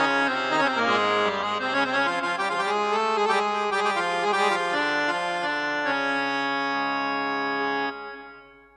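Korg Pa300 arranger keyboard playing its sampled harmonium sound: a melody of changing notes over held reedy chords. It ends on a sustained chord that is released about eight seconds in and fades out.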